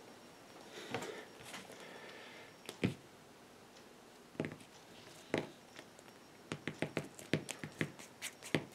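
Trading cards being handled and laid on a table: a few scattered light taps, then a quicker run of small clicks and taps in the last couple of seconds.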